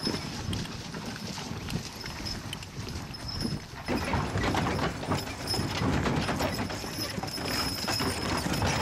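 Hoofbeats of a team of two grey draft horses clip-clopping through grass as they pull a covered wagon, uneven and getting louder about four seconds in.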